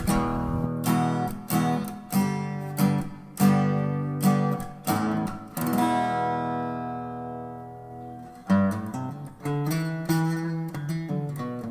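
Background music of strummed acoustic guitar chords. About six seconds in, one chord is left to ring and fade for around two seconds before the strumming picks up again.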